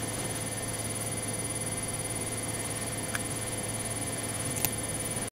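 Steady electrical hum with a faint high whine over background hiss, with a couple of faint clicks.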